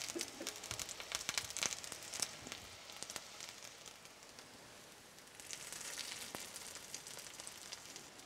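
Crab and potato cake frying in a pan of oil and butter: a crackling sizzle, busiest in the first three seconds, then a softer hiss that swells again briefly after about five seconds.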